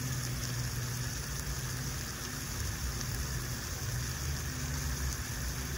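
Meat sizzling inside a small electric contact grill, a steady hiss, over a low steady hum from the portable power station's cooling fan.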